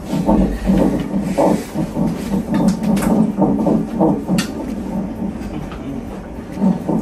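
Fetal heart monitor's Doppler ultrasound relaying the baby's heartbeat as a rhythmic whooshing pulse, a little over two beats a second.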